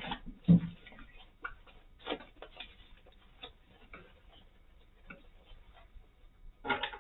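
Irregular clicks and light knocks of plastic pushchair-basket parts and screws being handled and fitted by hand, with a louder thump about half a second in and a quick cluster of clicks near the end.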